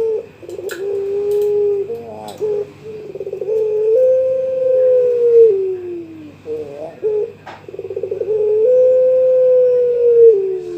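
Young puter pelung, a domestic turtle dove, cooing its challenge call to a rival: short stuttering coos, then a long drawn coo that sinks in pitch at the end, given twice.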